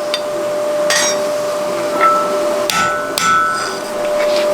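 Hand hammer striking hot mild steel on an anvil during forge welding of a collar onto a bar: several blows at an uneven pace, roughly a second apart, some leaving a short metallic ring. A steady hum runs underneath.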